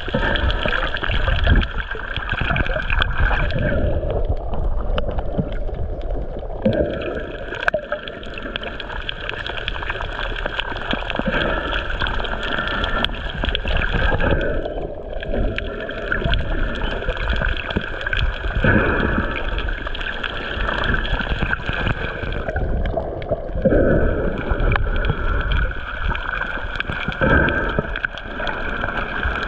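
Water gurgling and sloshing around a camera held just under the surface, a steady muffled rush with a few brief louder surges.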